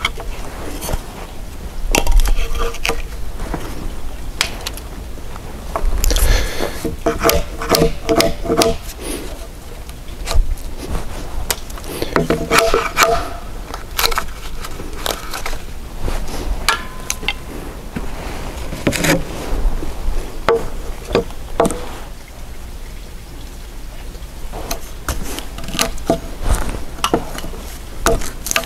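Hand woodworking on a timber beam: sharp wooden knocks and cracks as waste between saw cuts is broken out and pared away with a chisel, coming in clusters with quieter scraping between them.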